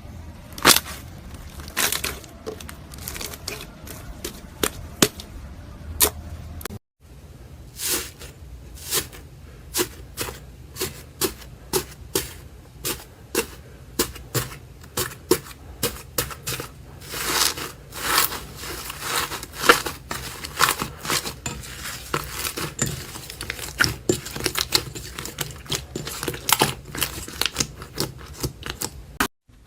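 Slime being squeezed and poked by hand, giving irregular sharp pops and crackles, several a second, with a short silent gap about seven seconds in.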